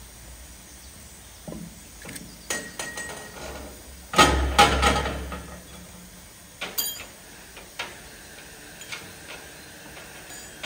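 Metal clanks and knocks from a crewman working on top of a steam tank locomotive's water tank, at the filler, getting ready to take on water. The loudest, a heavy clatter with a low rumble, comes about four seconds in; lighter knocks follow every second or so.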